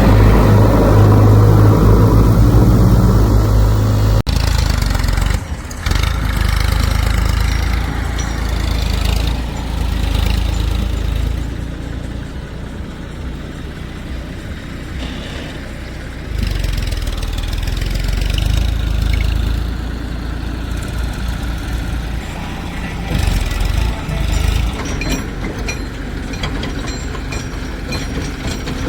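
Diesel engines of a backhoe loader and farm tractors running at work, a steady low hum whose note changes abruptly a couple of times, with light clicks near the end.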